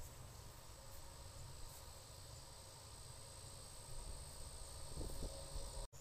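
Faint, steady, high-pitched insect chorus of crickets or katydids, with a low rumble underneath. The sound cuts out briefly just before the end.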